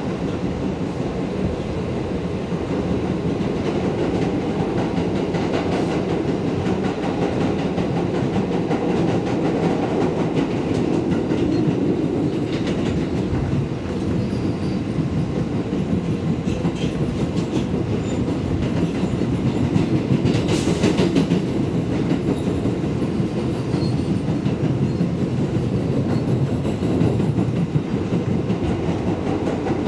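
New York City 7 train R188 subway car running, heard from inside the car: a steady loud rumble and clatter of wheels on the rails. About two-thirds of the way through there is a brief, sharper burst of noise.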